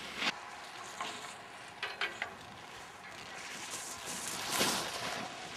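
Wind noise on a camcorder microphone outdoors in the snow: a steady hiss broken by several short rushes, the loudest about four and a half seconds in.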